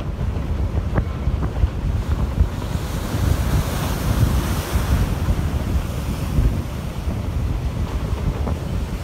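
Strong wind buffeting the microphone with a heavy low rumble, over rough surf. A louder wash of hiss swells and fades between about three and six seconds in.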